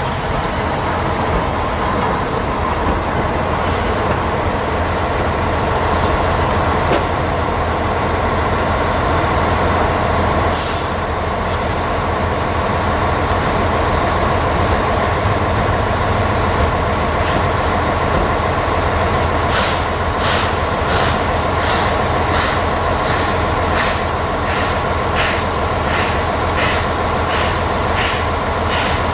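C11 tank steam locomotive working, with a steady hiss and hum and one short sharp burst of steam about a third of the way in. From about two-thirds in come evenly spaced steam exhaust chuffs, roughly one and a half a second, as it moves slowly in reverse.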